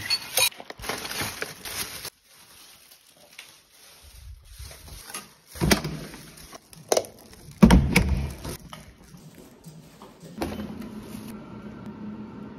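Plastic bags rustling and a metal spoon clicking against a ceramic bowl, then several loud thumps as a lever-handled door is opened and shut. From about ten seconds in, the steady hum of an elevator car.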